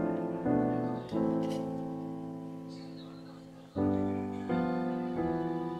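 Background piano music: chords struck one after another, each ringing and slowly fading, with one chord held for nearly three seconds in the middle.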